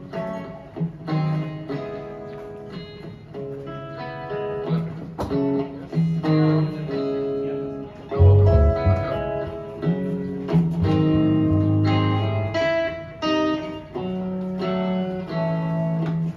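A guitar being played, picked notes and chords one after another, each ringing and dying away, with a heavier bass line coming in about halfway through. It is a little out of tune.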